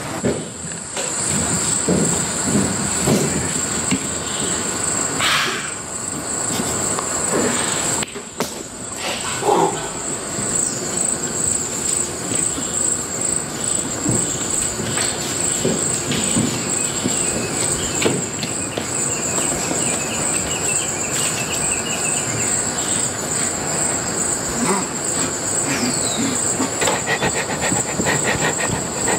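Steady high-pitched chorus of insects, with scattered faint knocks and short calls beneath it.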